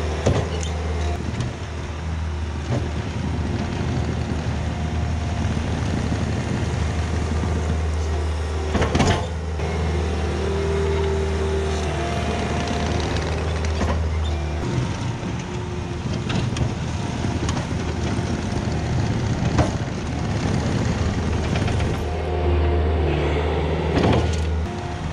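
Diesel engine of a compact loader running steadily while it digs out ground. The engine drops back about halfway through and picks up again near the end, with a few sharp knocks along the way.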